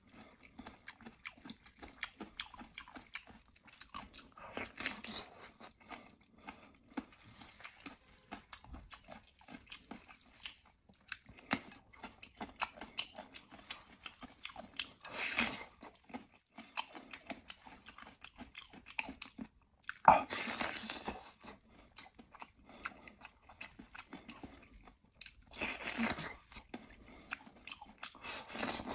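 Close-up eating sounds of a person biting and chewing sauce-covered meat off a bone, with steady small wet clicks and some crunching. Louder bursts come at about five, fifteen, twenty and twenty-six seconds in, the sharpest at about twenty seconds.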